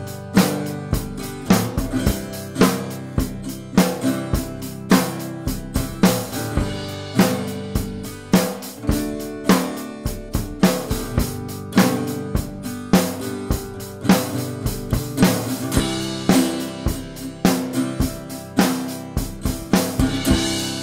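A drum kit playing a steady beat, with kick and snare hits, together with a strummed Harmony parlour acoustic guitar, in a studio multitrack recording.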